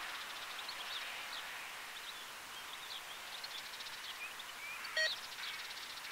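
Small birds chirping over a faint steady hiss, with one short, louder tonal call about five seconds in.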